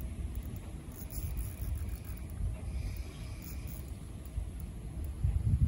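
Low rumble of wind buffeting the microphone, rising and falling unevenly.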